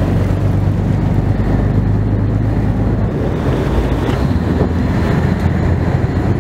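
Fishing boat's engine running steadily with a low hum, mixed with wind noise on the microphone.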